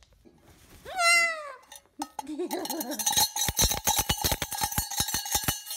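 Umbrella cockatoo giving one loud call that falls in pitch about a second in, then some lower chatter. From about halfway to near the end comes a rapid, irregular run of sharp knocks with a ringing tone underneath.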